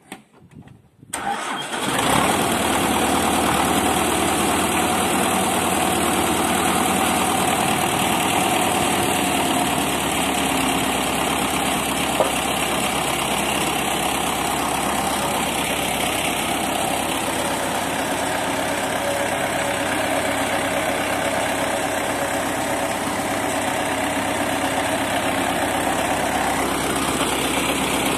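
An engine starts about a second in and then runs steadily at idle.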